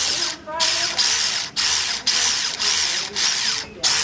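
Air ratchet running in repeated bursts of about half a second to a second, stopping and starting about five times, with a wavering high whine as it spins.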